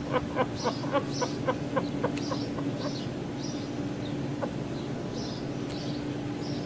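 A bird chirping over and over in the background, with a run of quick soft ticks in the first couple of seconds and a steady low hum underneath.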